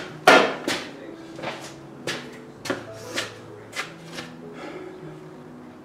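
A hammer striking metal in a run of about eight blows, irregularly spaced half a second or so apart. The first is the loudest and the later ones grow fainter.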